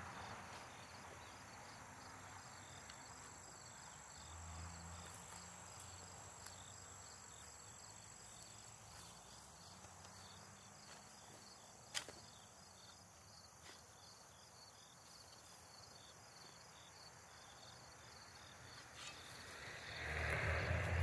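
Quiet digging: a spade being pushed and worked into clay soil, with insects chirping faintly and steadily. There is one sharp click about halfway through and a low rumble near the end.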